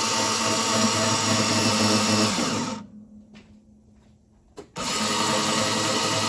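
Lenco electric trim actuator running, driving the jet pump's trim nozzle with a steady motor whine. It stops about two and a half seconds in, falls quiet for about two seconds, then starts again abruptly and keeps running.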